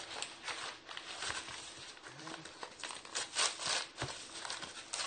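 A paper mailing envelope being torn open and handled: a run of tearing and crinkling rustles, strongest a little past three seconds in, with a sharp click at about four seconds.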